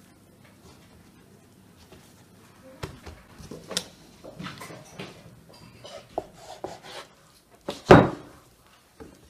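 Knife and hands working a rolled log of dough on a wooden board: scattered soft knocks and rubs starting about three seconds in, then a sharp knock of the knife blade through the dough onto the board about eight seconds in.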